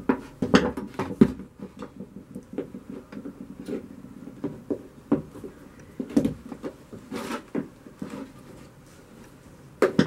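Handling noises as a rubber gas hose is pushed and wiggled onto the nozzle of a gas soldering iron: irregular knocks, taps and rubbing against a wooden workbench.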